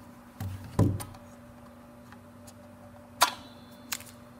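A few light clicks and taps from small plastic devices being handled while a battery pull-tab is removed, the sharpest about three seconds in, over a faint steady hum.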